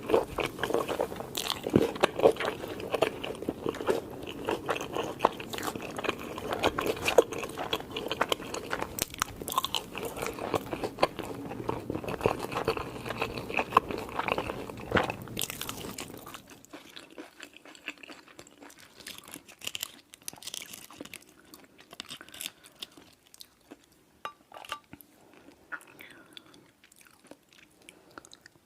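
Close-miked eating: crunching bites and chewing of crunchy food, dense and loud for a little over half the time, then quieter, sparser chewing.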